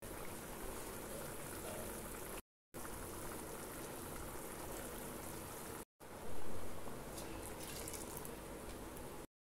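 Potato and green pea kurma bubbling steadily in a metal pot as ground coconut-cashew paste and liquid are poured in, with a brief louder stretch about six seconds in.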